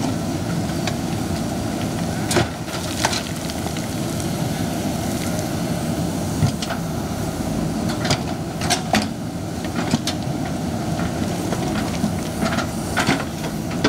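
Excavator's diesel engine running steadily, with scattered sharp knocks of stone and steel as boulders are moved, several coming close together near the middle.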